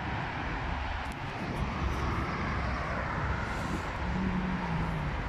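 Road traffic passing through a busy city intersection: a steady rumble of car engines and tyres on asphalt, with one car's engine hum standing out near the end as it comes closer.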